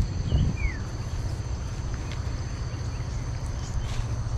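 Steady high drone of evening insects, with two short bird chirps about half a second in, one of them a falling whistle, over a constant low rumble.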